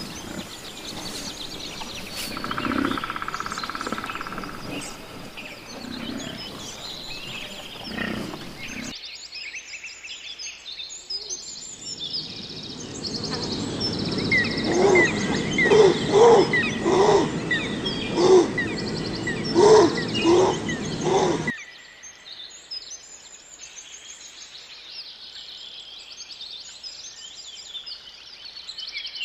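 Birds chirping, with a run of about ten short, loud, repeated animal calls in the middle section.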